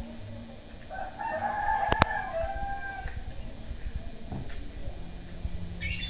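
A rooster crowing once, a single crow of about two seconds starting about a second in. A sharp click sounds in the middle of the crow, and a small bird chirps briefly near the end.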